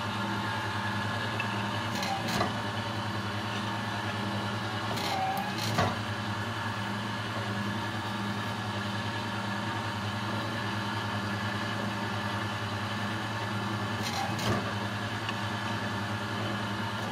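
Homemade cold-forging roller machine running with a steady motor hum while it flattens the end of a square profile-tube blank. There are a few short knocks as the tube goes in and out of the rollers.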